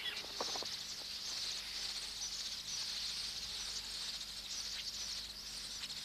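Massed, steady high-pitched chatter of a red-billed quelea breeding colony, with a few short separate chirps near the start.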